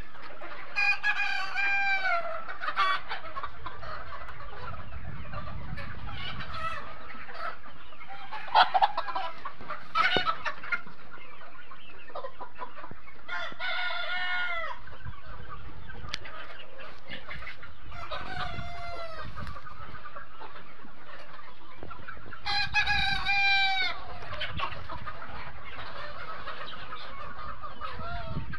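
A large flock of Sonali chickens clucking and calling continuously, with roosters crowing about four times, the loudest crows about a second in and near the end.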